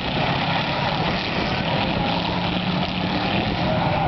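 Several hit-to-pass race cars' engines running together around the oval, a dense steady mix with one engine note holding steady through the middle.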